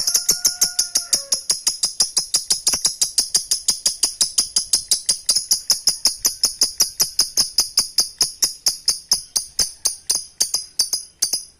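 Lovebird giving its long 'ngekek' chatter: a fast, even run of sharp high-pitched chirps repeated many times a second, barely pausing, with a brief break near the end.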